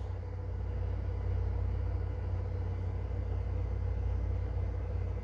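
Steady low rumble and hum with a faint hiss: background room tone, with no distinct event.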